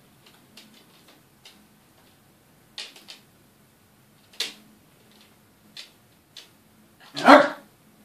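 Yorkshire terriers' claws ticking on a wooden floor as the dogs shift and step about, scattered clicks a second or so apart. One short, loud bark about seven seconds in.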